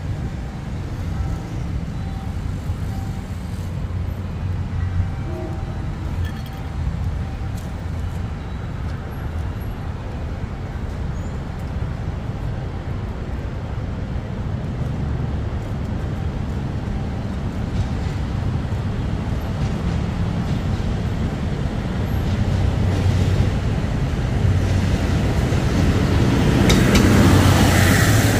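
A steady low rumble, then a KiHa 183 series diesel multiple-unit train growing louder over the last several seconds as it approaches and passes close by near the end.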